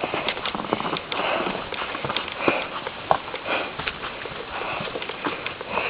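Footsteps crunching through deep snow at a walking pace, with a person's breathing.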